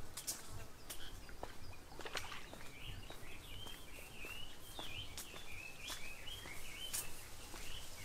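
Small birds chirping: many short, quick calls one after another, over a low outdoor rumble, with scattered sharp clicks.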